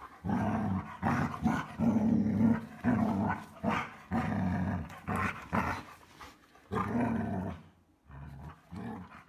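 Excited dog vocalizing in a run of about a dozen short, howl-like yowls and grumbles, one after another with brief gaps, quieter near the end.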